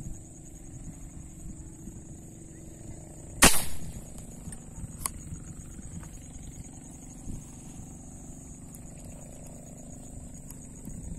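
A rubber-powered spear gun is fired once into the water about three and a half seconds in, with a single sharp snap, followed by a fainter click about a second and a half later. A steady high-pitched whine runs underneath.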